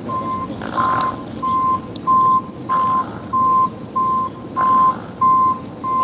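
An electronic beeper sounding one steady pitch over and over, about one and a half beeps a second, each beep as long as the gap after it, over a steady low rumble of street noise.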